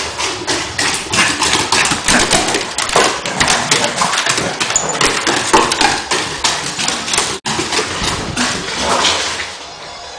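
Dogs' claws and paws clattering and scrabbling on bare wooden floorboards during rough play, a dense run of quick clicks and knocks that eases off near the end.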